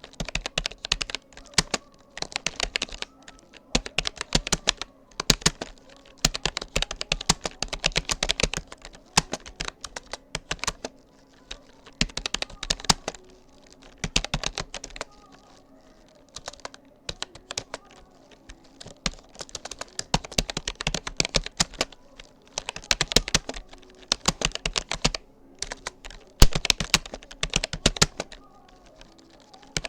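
Typing on a Rapoo computer keyboard: fast runs of key clicks in bursts of a second or two, broken by short pauses.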